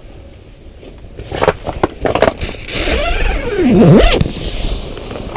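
Handling noise of leaving an ice fishing shack: several knocks and clicks, then a squeak that falls and rises again, with rustling.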